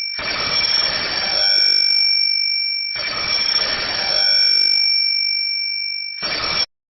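Swiggy delivery partner app's new-order ringtone playing on a phone: an electronic alert with high steady tones, repeating about every three seconds, that cuts off suddenly near the end.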